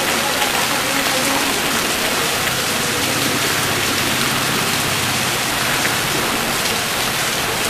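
Heavy rain pouring steadily onto a wet road and trees: a dense, even hiss.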